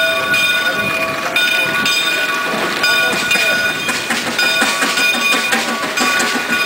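Steam whistle on a steam road locomotive, blown in repeated blasts of a second or two with short gaps, holding the same chord of several high tones, over the rattle of the steam truck running past.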